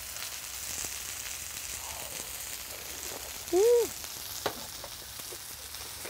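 Pork belly and vegetables sizzling steadily on a metre-wide cast-iron cauldron-lid griddle (sotttukkeong). About three and a half seconds in, a short hummed "mmm" of enjoyment rises and falls over the sizzle and is the loudest sound.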